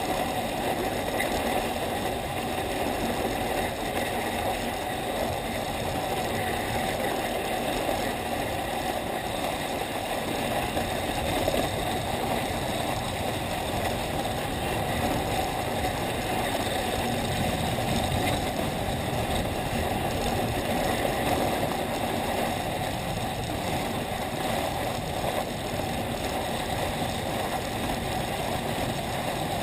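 Steady scraping hiss of skis sliding over packed snow while being towed uphill on a T-bar ski lift, with rushing noise over the microphone.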